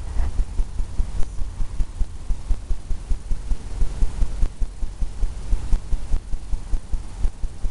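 Rapid, uneven low thumps of a brush dabbing against a stretched canvas on an easel.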